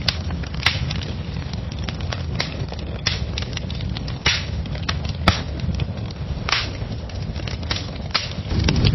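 Fire crackling: irregular sharp pops and snaps over a steady low rumble. Near the end a louder, denser crackling fire takes over.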